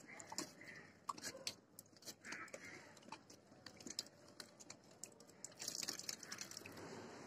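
A St. Bernard licking and lapping water at a tap: faint, irregular wet clicks and slurps, with a slightly louder slurp about six seconds in.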